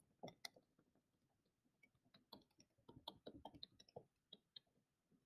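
Faint, scattered clicks from erasing hand-drawn ink on a digital slide: two near the start, then a quick run of small clicks in the middle.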